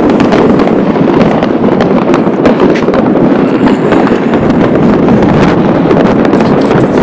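New Year's Eve fireworks going off all around in a dense, continuous barrage: many sharp bangs and crackles merging into a loud steady din.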